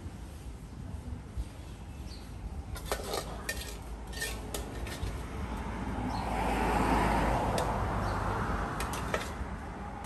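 Metal utensils clinking against bowls and pans during food preparation: a few sharp clinks about three to five seconds in, then a louder stretch of rushing noise for about two seconds past the middle, and more clinks near the end.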